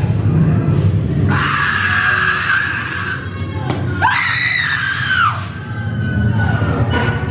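Two long, high-pitched screams, the second rising and then falling away, over a low rumbling haunted-house soundtrack.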